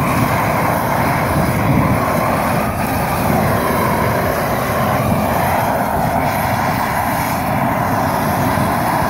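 MagFire+ 500,000 BTU propane weed-burner torch running steadily, its loud, even jet of burning gas held on a wood pile.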